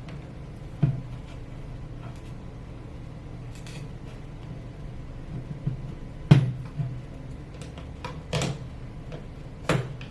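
Scattered sharp knocks and clicks of rifle parts and small tools being handled and set down on a desk while a sling mount is fitted, the loudest about six seconds in, over a steady low hum.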